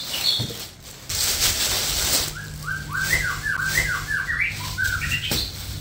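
Thin plastic bag rustling and crinkling loudly as a bundle of spinach is unwrapped, then a bird chirping in a quick run of short rising notes.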